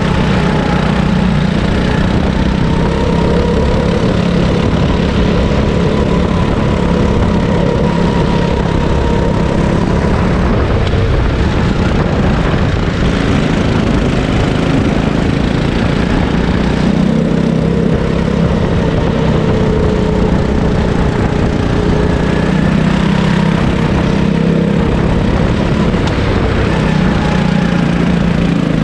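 Sodi rental kart's engine running flat out on track, heard from on board; its pitch drops and climbs again several times as the driver lifts for corners and accelerates out of them.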